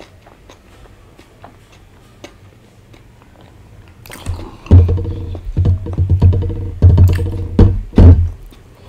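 Background music with a heavy, repeating bass beat that comes in loud about four seconds in, after a quiet start.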